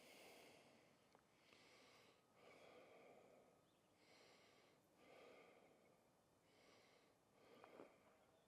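Faint breathing of a person on foot, slow regular in-and-out breaths close to the microphone.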